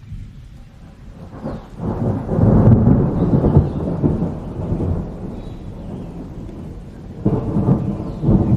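Thunder rumbling over steady rainfall: a long roll swells about two seconds in and slowly fades, then a second, sharper peal comes near the end.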